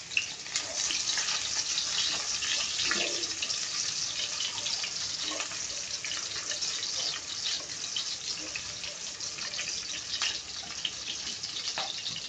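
Sliced garlic, shallots and ginger sizzling steadily in hot oil in a wok, with a crackle of small pops and the spatula stirring them now and then.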